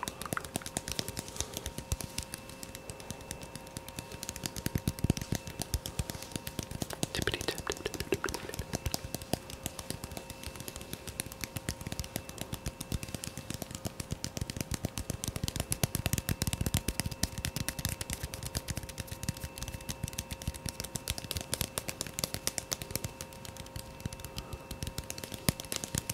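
Fast ASMR tapping by hand: a dense, rapid, irregular patter of light taps with a faint steady tone underneath.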